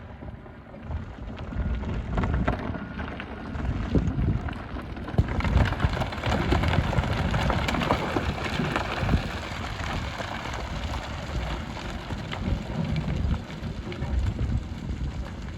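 Hyundai HX300 excavator working aggregate: its diesel engine runs under a steady low rumble while gravel and stones rattle and scrape against the bucket, busiest in the middle.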